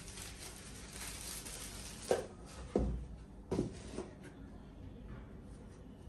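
A white dust cover rustling as it is pulled off a metal-cased mechanical keyboard. About two seconds in come three dull knocks, a little under a second apart, as the keyboard is handled and picked up off the desk.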